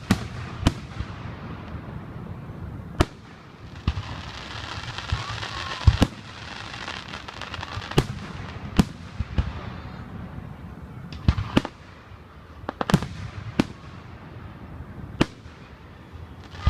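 Aerial fireworks bursting: about a dozen sharp bangs at uneven intervals, with a stretch of crackling in the middle.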